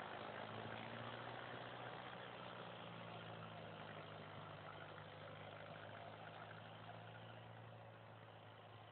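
An old engine running steadily at a low, even pitch, growing gradually fainter.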